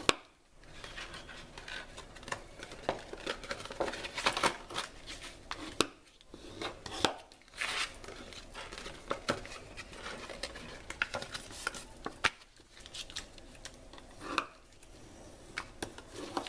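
Bone folder scraping along the score lines of pink card stock to burnish the folds, with irregular paper rustling and light clicks and taps as the sheet is turned and pressed.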